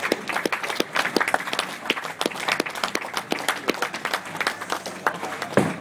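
A small group clapping, with sharp, separate claps coming thick and fast. A heavier knock comes just before the end.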